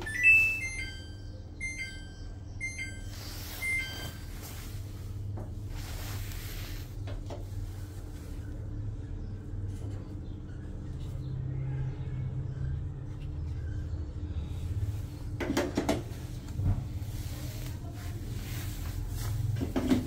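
Samsung front-load washing machine's control panel beeping a short tune of several tones, about one a second, right after its start/pause button is pressed. A steady low hum runs underneath, and a few sharp clicks come about fifteen seconds in.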